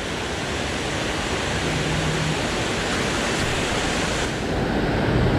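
Steady, even rush of river water.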